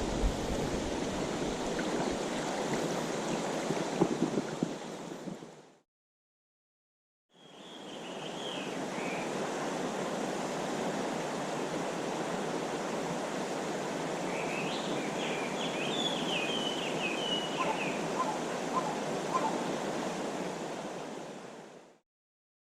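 Mountain stream's running water: a steady rush that fades out, breaks off for a second or two, then fades back in. High chirping calls come over it twice.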